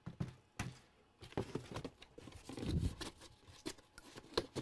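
Cardboard box being handled and its flaps folded shut: scattered scrapes, rustles and light knocks, with a duller thump about two and a half seconds in.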